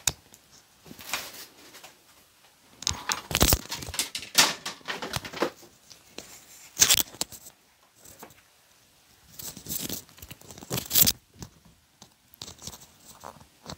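A shiny nylon windbreaker and the clear plastic carrier sheet of a heat-transfer design rustling and crinkling as they are handled and smoothed, in irregular bursts with short pauses between, with a few light knocks.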